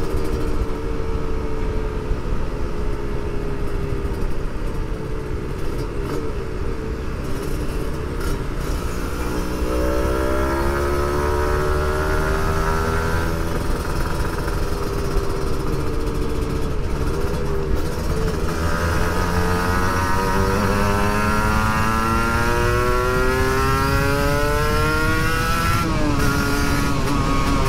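Kawasaki Ninja RR 150's two-stroke single-cylinder engine heard from the saddle while riding. It holds a steady pitch, then the revs climb under acceleration about a third of the way in, settle, and climb again in a long rise before dropping sharply near the end as the throttle closes or a gear is changed. Wind and road rumble run underneath.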